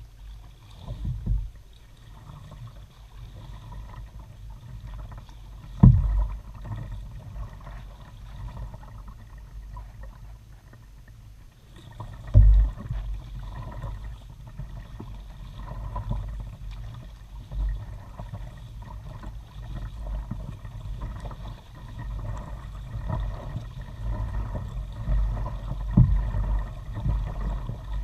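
Kayak being paddled along calm water: paddle strokes swishing and dripping, over a steady low rumble through the hull, picked up by a camera mounted on the bow. Four sharp thumps stand out, and the water noise grows fuller from about halfway.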